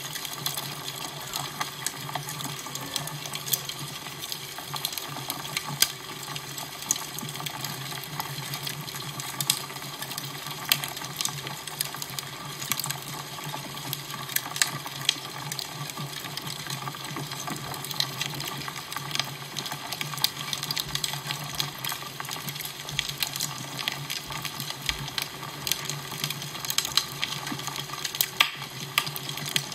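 Fire crackling: frequent irregular pops and snaps over a steady hiss and a low steady hum.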